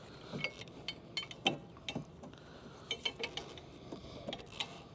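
Scattered light metallic clicks and ticks of a wrench being fitted and worked on a stubborn brake caliper bolt, with the car's own tool slipped over it for extra leverage.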